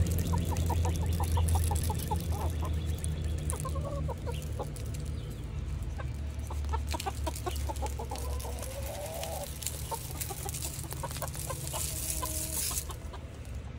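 Domestic chickens clucking: a quick run of short clucks at the start, then scattered clucks and a couple of longer drawn-out calls, over a steady low rumble that is loudest at the start.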